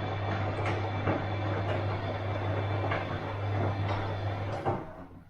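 Bosch washing machine running: a steady motor hum under the churning and sloshing of the drum turning the load, with scattered knocks. Near the end a knock comes and the hum stops, dropping the sound sharply, as when the drum stops turning between tumbles.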